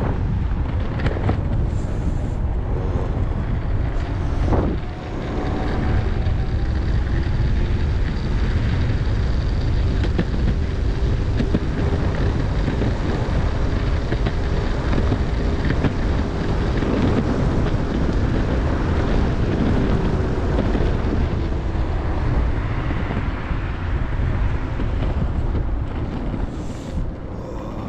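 Strong wind buffeting the microphone over the steady rumble of an electric skateboard's wheels on pavement, with a faint whine from its two hub motors that slowly rises and falls with speed.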